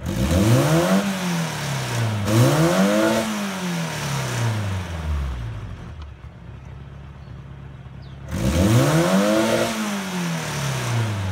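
Toyota 2T four-cylinder engine revved through its custom exhaust, three times. Each rev climbs and falls back over about two seconds, with a quieter idle stretch between the second and third.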